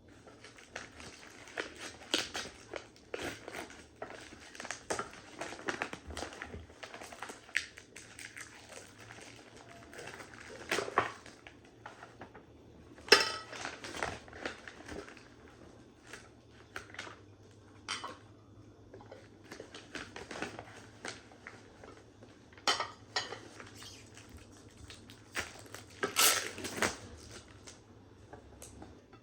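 Dishes and cutlery clinking and clattering in an irregular run of short knocks, with sharper knocks about halfway through and again near the end.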